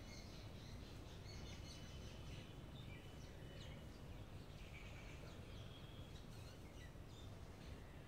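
Faint chirps and twitters of small birds, many short calls scattered throughout, over a steady low rumble.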